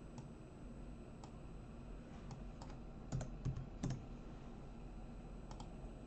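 Faint clicks of a computer mouse and keyboard: scattered single clicks, with a louder quick run of clicks and key taps about three to four seconds in.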